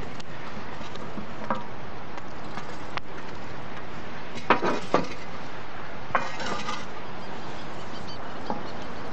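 A metal shovel clinking and scraping against a covered metal pot and grill as embers are heaped on the lid for heat from above. The clinks are scattered, with the sharpest two about four and a half and five seconds in, over a steady background hiss.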